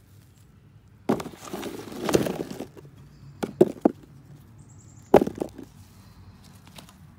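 Garden soil scraped and dug through for about a second and a half, then freshly dug potatoes dropped into a plastic basin: three quick knocks, then one sharp, loud knock.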